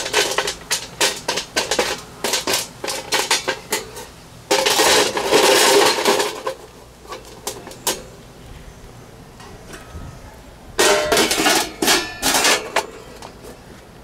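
Pecan wood chips clicking and rattling on the stainless steel pan of a box smoker as they are spread by hand, with a dense rattle a few seconds in. Near the end, metal clatters as a wire rack and tray are set into the smoker.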